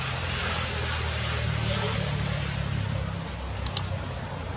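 A steady low outdoor rumble, with two sharp clicks in quick succession near the end: the mouse-click sound effect of an animated on-screen Subscribe button.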